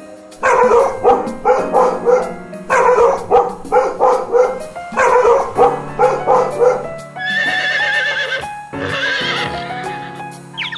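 A dog barking in three quick runs of short barks, then two horse whinnies, each with a wavering pitch, over background music.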